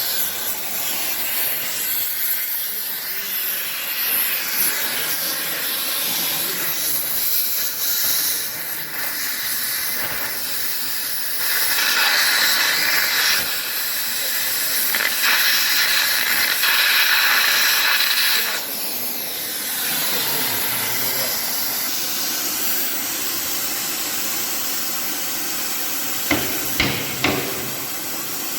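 Oxy-fuel cutting torch hissing steadily, growing louder for several seconds in the middle. A few sharp metal knocks near the end.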